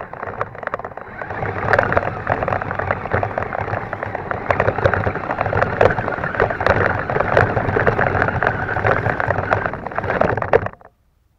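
Himoto 1:10 scale RC truck driving through grass, heard from a camera on the truck: a dense, steady rattle of grass and debris striking the body and wheels over the running drivetrain, cutting off suddenly less than a second before the end as the truck stops.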